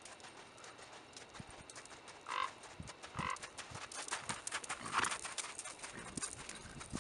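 Horse's hoofbeats on arena sand, a run of soft knocks that grows louder as the horse passes close about four to five seconds in. A few short louder noises come in the middle, the loudest about five seconds in.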